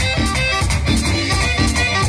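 Live merengue típico music: an accordion plays a melody over a quick, steady scraping percussion rhythm and a drum beat.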